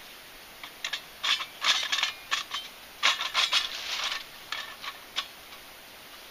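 Small metal wood-burning stove handled and set down on a flat stone: a run of light metallic clinks and scrapes, in two main clusters, one starting about a second in and one about three seconds in, with a few lighter taps after.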